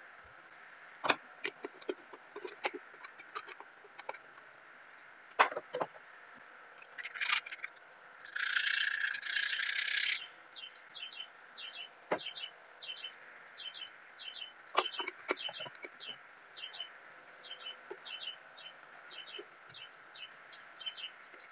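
Scattered light clicks and taps as a screw and a round wooden knob are handled and fitted against a wooden cabinet drawer front, with a hiss lasting about two seconds midway. From about halfway a small bird chirps over and over, about twice a second.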